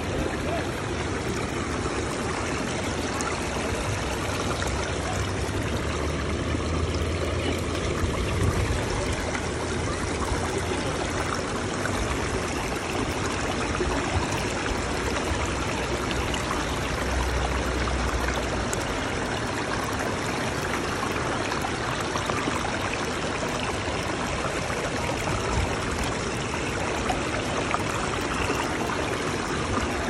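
Shallow stream water flowing and trickling over rocks close to the microphone, a steady rushing with no breaks.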